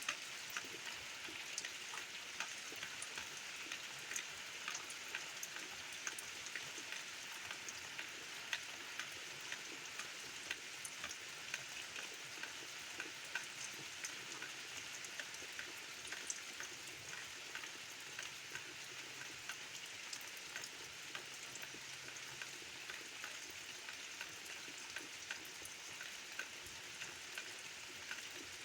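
Steady rain falling, a constant hiss with many scattered drops ticking sharply.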